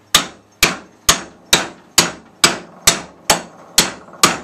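Steady hammer blows, about two a second, each ringing briefly, struck on the end of a pool pump motor's armature shaft to drive the armature and its bearing out of the front end bell.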